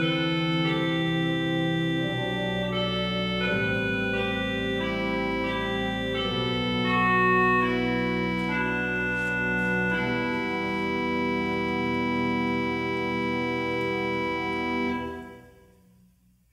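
Organ playing slow, sustained chords, ending on a long held final chord that is released about fifteen seconds in and dies away to near silence.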